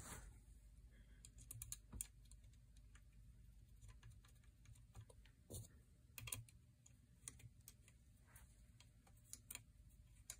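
Faint, irregular small clicks and ticks of a steel hex key and a metal rifle trigger assembly being handled while a small screw on the trigger is worked.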